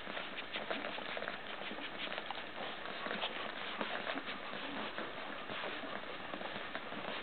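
A litter of newborn puppies suckling at their mother's teats: a steady run of many small sucking clicks and smacks, the sound of nursing once the mother's milk has come in.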